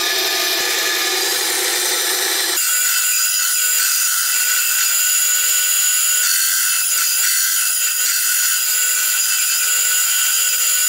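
ATIKA BS 205 bandsaw, its 370-watt motor driving the wheel directly, running steadily with a high whine while the blade cuts small pieces of thin plywood. About two and a half seconds in the sound changes abruptly and loses its lower part.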